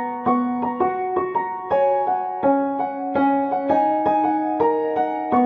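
Background music: a gentle piano or electric-piano tune, playing a steady run of notes over held chords.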